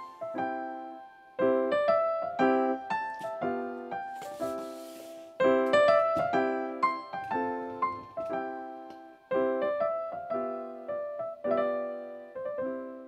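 Background keyboard music: a light tune of separate struck notes that die away, fading out near the end. A brief rustle is heard about four seconds in.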